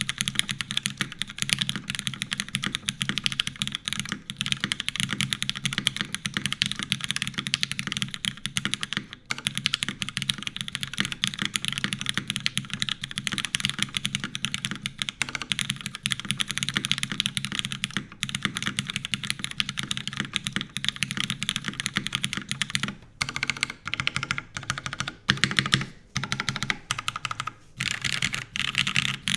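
Fast, continuous typing on a mechanical keyboard with lubed Cherry MX Black linear switches, GMK keycaps and a full aluminium plate with no foam or dampening, resting on a bare desk. The keystrokes thin out into separate strokes with short pauses near the end.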